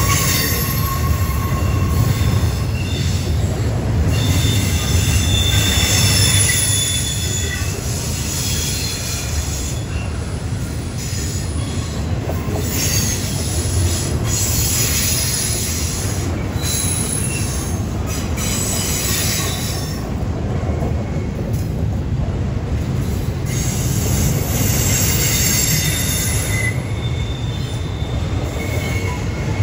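A train rolling past with a steady low rumble, its wheels squealing on and off in high, thin tones.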